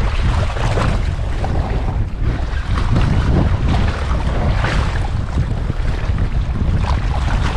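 Wind buffeting the microphone in a steady low rumble over the wash of the sea.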